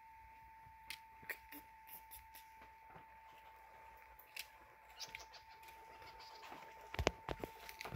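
Red squirrel cracking and chewing sunflower seeds: scattered small sharp cracks of the shells over a faint steady whine. A few louder knocks about seven seconds in.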